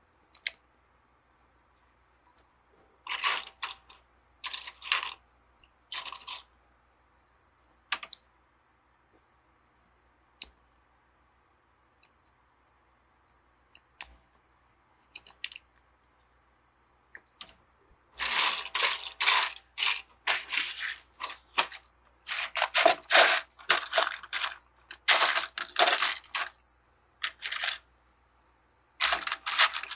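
Small plastic Lego pieces clattering and clicking as hands rummage through piles of sorted bricks, in short bursts with a few single clicks between. The rummaging gets longer and busier in the second half.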